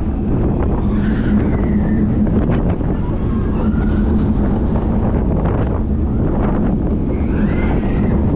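Steel roller coaster train running at speed through its track: loud, steady wind buffeting the front-row microphone over the rumble and hum of the wheels on the rails. A few brief high-pitched glides come and go above the noise.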